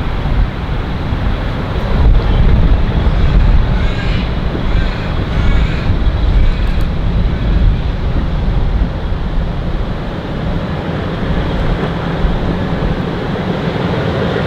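Walker diesel railmotor running as it approaches slowly, a heavy low rumble that is loudest between about two and eight seconds in.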